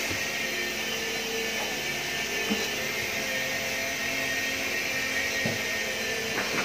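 A steady machine whir with a faint hum, and a couple of soft knocks about two and a half and five and a half seconds in.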